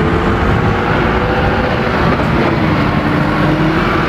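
Hybrid double-decker bus moving off: a steady engine and road rumble with a faint whine that slides slightly lower in pitch.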